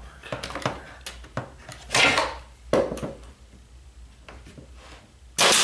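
Bostitch pneumatic nailer firing nails into oak edge trim: three sharp shots, each with a short rush of air, about two, three and five and a half seconds in, between lighter knocks as the tool is set against the wood.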